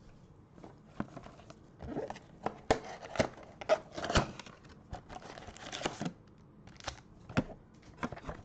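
Plastic trading-card packaging crinkling and tearing as it is pulled open by hand, with irregular rustles and sharp crackles, busiest in the middle.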